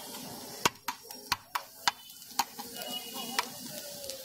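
Food sizzling on a large flat metal griddle (tawa), with a metal spatula clacking and scraping against the hot plate in about seven sharp taps.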